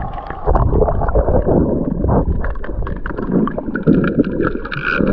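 Water sloshing and splashing close to the microphone, with bubbling and many irregular small knocks, louder from about half a second in.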